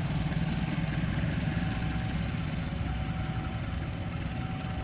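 Diesel train engine idling with the train at a standstill: a steady low drone.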